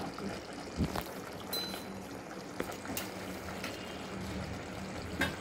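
Thick vegetable curry simmering in an aluminium pot: a steady low bubbling with a few soft pops and clicks.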